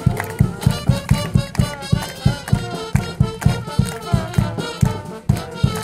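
Live band music with a steady low drum beat, about three strokes a second, under a melody line.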